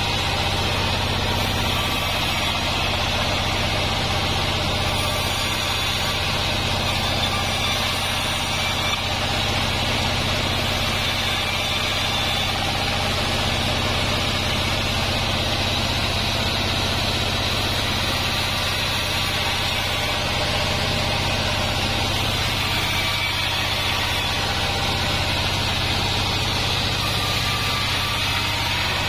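Band sawmill running and sawing waru wood: a steady drone from the drive with a hiss above it, even throughout with no pauses.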